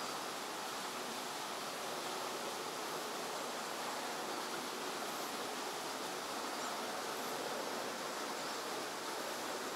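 Steady rush of flowing water, an even hiss that holds at one level throughout.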